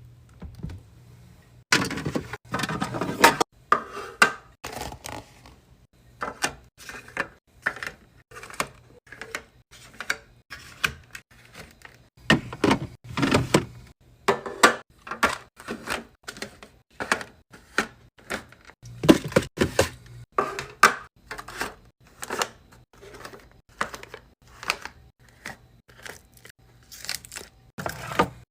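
Food containers and packages being handled and set down while restocking a fridge: a continuous run of clicks, knocks and clatter, several a second.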